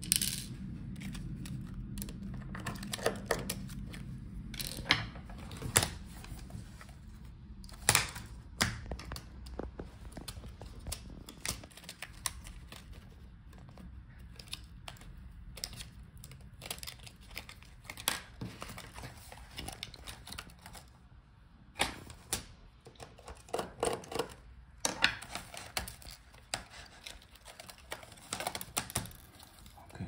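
Scattered clicks, taps and scrapes of a small screwdriver and a plastic pry tool on a laptop's metal touchpad bracket and plastic palm rest, with a denser run of clicks near the end as the touchpad is pried free. A low hum fades out about eight seconds in.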